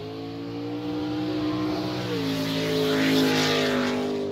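A car engine held at high revs: its pitch climbs just before, holds steady, then drops a step about two seconds in, while a hiss swells to a peak around three seconds.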